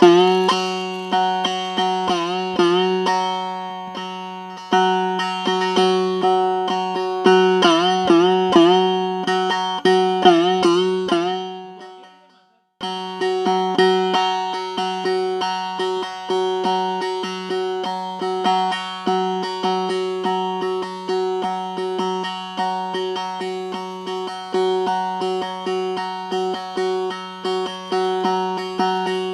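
Instrumental devotional music: a plucked string instrument playing notes that bend up and down in pitch over a steady drone. It drops out briefly about twelve seconds in, then resumes with quick repeated plucked notes over the same drone.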